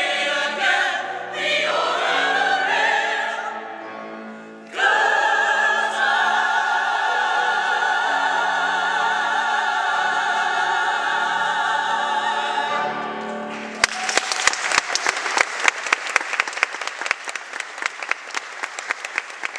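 A musical-theatre ensemble sings the end of a song, closing on a long held chord with vibrato. Audience applause breaks out about two-thirds of the way through.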